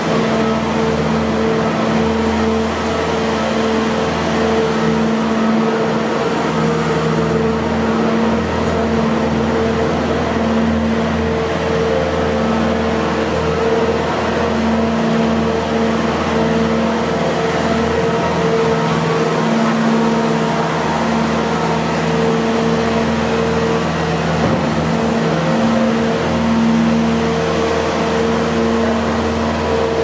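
Bobcat S650 skid-steer loader's diesel engine running steadily as the machine drives about.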